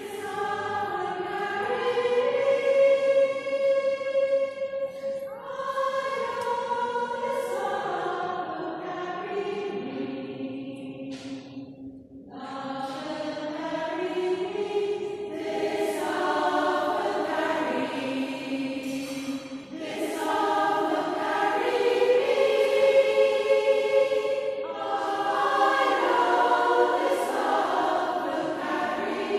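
A choir singing in long held phrases in a cathedral's reverberant acoustic, with a brief break in the sound about twelve seconds in.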